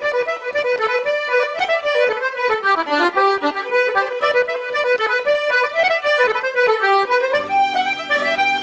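Background music: a fast instrumental tune of quick running notes, with lower, longer-held notes joining about seven seconds in.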